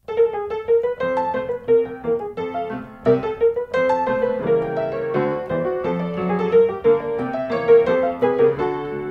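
Background piano music: a gentle melody of single notes over soft chords at an even pace.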